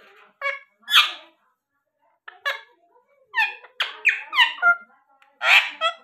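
Rose-ringed (Indian ringneck) parakeets calling: a few short squawks, then a quick run of about five rising-and-falling calls from about three seconds in, and a louder harsh squawk near the end.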